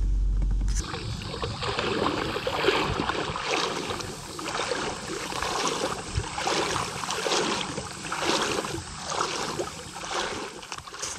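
A person wading through a shallow creek: water swishing and splashing with each stride, about one a second. A low vehicle-cabin rumble is heard first and cuts off under a second in.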